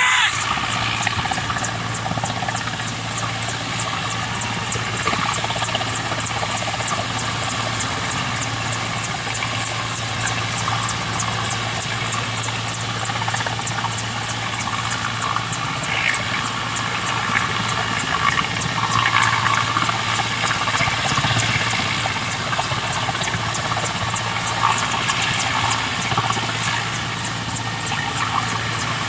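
Helicopter hovering, its rotor beating in a steady rapid rhythm over a low engine drone.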